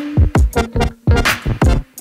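Electronic background music with a drum-machine beat of deep kick drums and sharp snare hits, over a few held synth notes.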